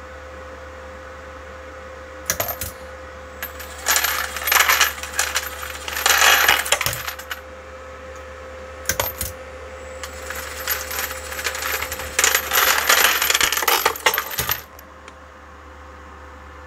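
Brass 6mm AR rifle cases clattering and jingling in a Dillon case feeder in irregular bursts, from about 2 s in to near the end, as the feeder tumbles them and sends them down to the annealer. Under it a steady machine hum.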